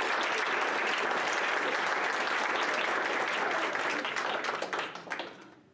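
Applause from many hands clapping at once, steady, then thinning out and dying away near the end.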